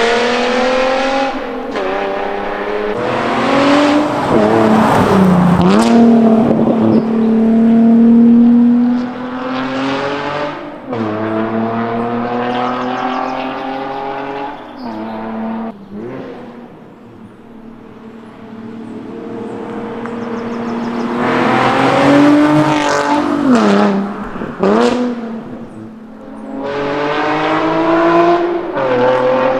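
Nissan 370Z Roadster's 3.7-litre V6, through a Group N stainless mid-pipe and custom stainless rear silencer, accelerating hard through the gears: the exhaust note climbs in pitch, drops at each upshift and climbs again. The car passes close by more than once, fading away and coming back loud.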